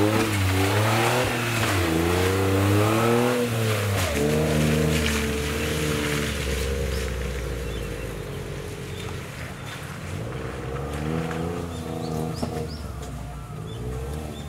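Suzuki Jimny's engine revving up and down over and over as it crawls over rocks and through mud in low gear. It is loudest over the first four seconds and quieter after that, with another run of revs about ten seconds in.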